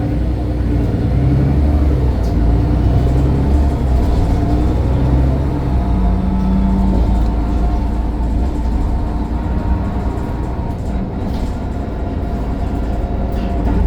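Mercedes-Benz Citaro O530 bus's diesel engine running under way, a steady low rumble with engine tones that shift in pitch, and a faint turbocharger whine above it.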